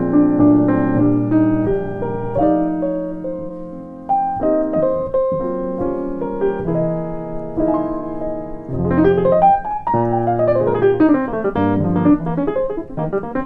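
Yamaha grand piano played solo: sustained chords, then from about nine seconds in a quick flurry of running notes.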